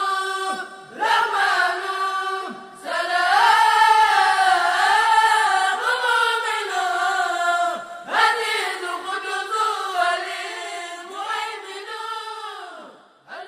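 Unaccompanied devotional vocal chanting in long, wavering melismatic notes. There are short breaks between phrases about half a second in, near three seconds and around eight seconds.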